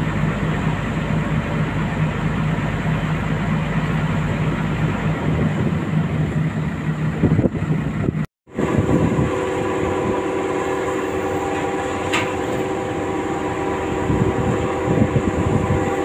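Steady engine drone of heavy construction machinery running. A brief dropout about halfway through is followed by a different steady drone with higher, humming tones.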